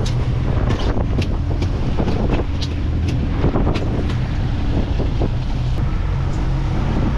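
A fishing boat's engine running steadily while trolling, with strong wind buffeting the microphone. Scattered sharp ticks and knocks come through on top.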